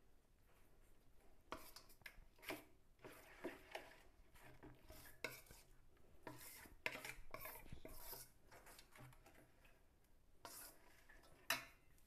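A spoon stirring thick pakora batter in a metal bowl: faint, irregular scrapes and light clinks of the spoon against the bowl.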